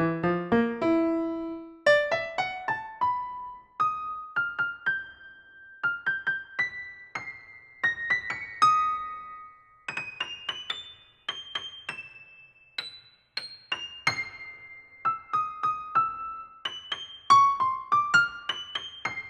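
Background piano music: a slow melody of single struck notes that climbs from low notes into the upper register and settles back lower near the end.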